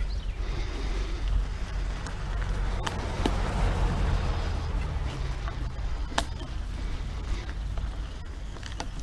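Mountain bike being ridden on a dirt trail: steady wind rumble on the microphone over tyre noise, with a few sharp clicks or rattles from the bike about three seconds in and again about six seconds in.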